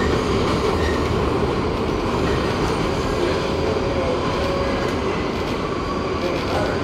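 Inside a New York City 7 train subway car running on elevated track: a steady rumble and rattle of the wheels on the rails, with faint squealing tones from the wheels.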